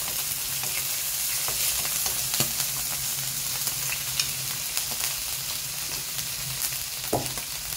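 Chicken pieces with ginger and garlic sizzling steadily in a non-stick frying pan, stirred with a wooden spatula that clicks and scrapes against the pan now and then. The chicken is being fried to render out its fat.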